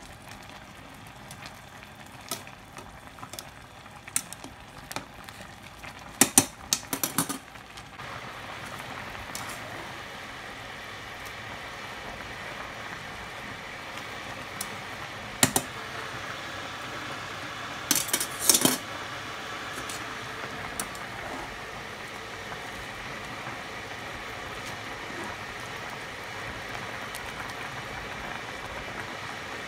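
Spaghetti boiling in a pot of water, a steady bubbling hiss that gets a little louder about eight seconds in. A utensil stirring the noodles knocks and clinks against the pot in a few short clusters, the loudest around six to seven seconds in and again around eighteen seconds.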